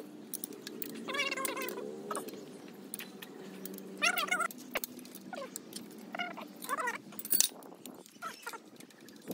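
Several short wavering animal calls, the clearest about a second in and about four seconds in, with light metallic clinks and a steady low hum underneath.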